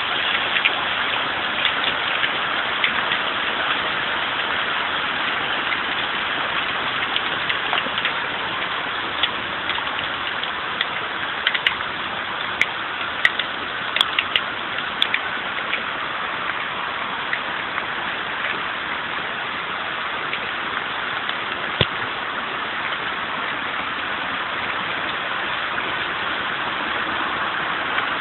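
Hail coming down hard: a dense, steady hiss of hailstones, dotted with sharp clicks of single stones striking nearby surfaces, the clicks thickest around the middle.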